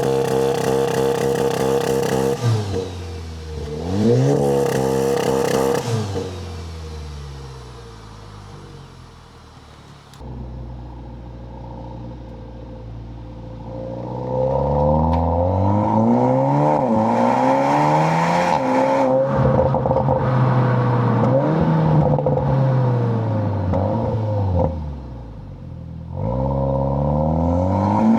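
Exhaust of a 2020 SEAT Leon Cupra ST's turbocharged 2.0-litre four-cylinder through a Milltek non-resonated cat-back system. The engine is revved twice in quick succession and settles, then rises and falls in pitch again and again.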